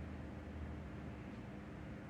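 Steady low hum of room tone, with no distinct sound standing out.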